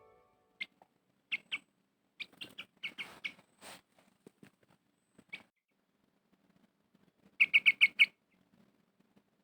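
A small bird chirping: scattered short calls, then a quick run of five loud chirps about seven and a half seconds in.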